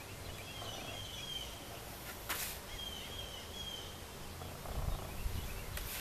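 A bird repeats a short, descending whistled call about once a second. About two seconds in there is one sharp click, and near the end a low rumbling knock as the wooden outer cover of a beehive is lifted off and handled.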